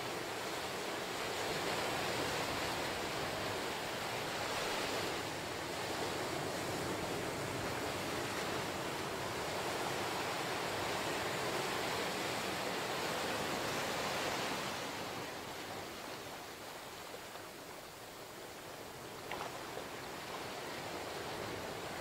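Ocean surf breaking and washing up a sandy beach between lava rocks: a steady wash of white water that eases off about two-thirds of the way through as the wave recedes.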